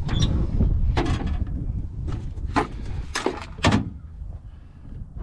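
Trunk lid of a 1973 Ford Mustang Mach 1 being opened: a string of sharp clicks and knocks from the latch and lid over a low rumble.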